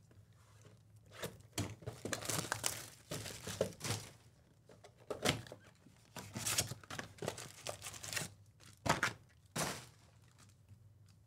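Cardboard Topps Chrome Logofractor hobby box being handled and torn open, and foil-wrapped card packs crinkling as they are pulled out and stacked. Two sharp knocks come about nine seconds in.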